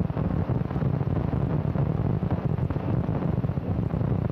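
Wind buffeting the microphone: a steady low rumble, with fainter noise over it.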